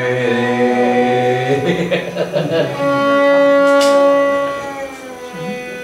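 A man's voice singing a held note in Hindustani classical style alongside a bowed violin. The voice drops out about a third of the way in and the violin carries on with long held notes.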